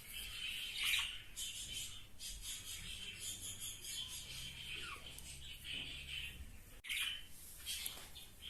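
Budgerigars warbling and chattering in a continuous scratchy stream, with louder chirps about a second in and again near the seven-second mark.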